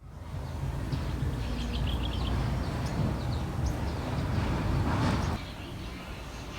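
Low, steady vehicle rumble that drops away suddenly about five seconds in, with a bird chirping a quick run of short notes in the first half.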